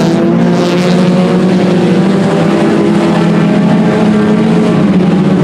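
A field of IMCA Sport Compact race cars running at speed on a dirt oval just after a green-flag restart, several engine notes overlapping and holding steady.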